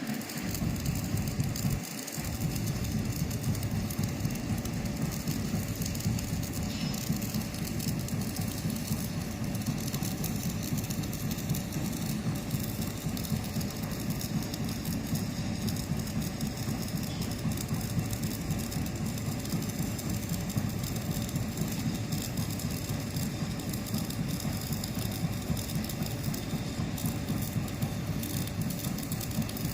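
Stick (arc) welding with an E6013 electrode on galvanized iron: a steady crackle and sizzle of the arc as the second, cover pass is run around a pipe-to-flange joint, with a brief dip about two seconds in.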